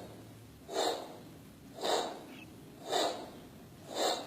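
Heart sounds of aortic stenosis heard through a stethoscope over the aortic area: a harsh systolic murmur that swells and fades with each beat, about once a second, four beats in all.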